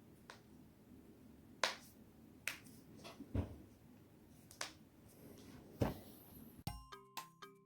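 Spinal joints cracking as the neck and back are twisted: about six sharp pops, a second or so apart, some with a dull low thump. Bright chiming music starts near the end.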